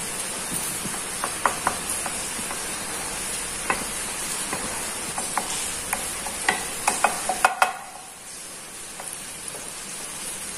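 Butter melting and sizzling in a pan, with a wooden spatula knocking and scraping against the pan as it is stirred: a steady sizzle with a dozen or so sharp taps, coming quicker around six to seven and a half seconds in. The sizzle drops quieter about eight seconds in, once the tapping stops.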